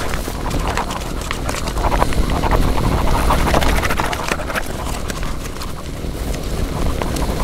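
Irregular footsteps on rough ground, over a steady low rumble.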